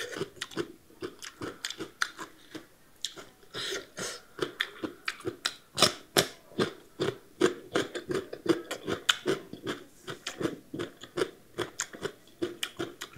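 Close-miked crunchy chewing of raw radish slices, sharp crisp crunches at about three to four a second with wet mouth sounds between.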